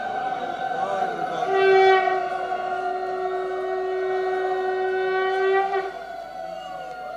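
Conch shells (shankha) blown in long, steady notes. A higher note sounds throughout; a lower, louder note comes in about one and a half seconds in, holds for about four seconds, then stops.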